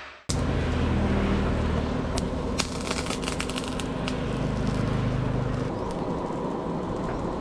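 Coal forge fire heating a length of rebar under forced air: a steady low drone with scattered sharp crackles and pops from the burning coal, starting suddenly a moment in.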